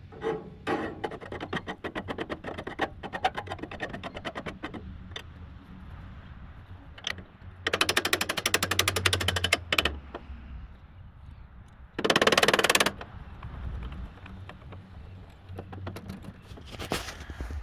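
Hand tools clicking and tapping on metal as the sawmill's rebuilt hand-crank assembly is put back together. Two runs of rapid, evenly spaced clicks come near the middle.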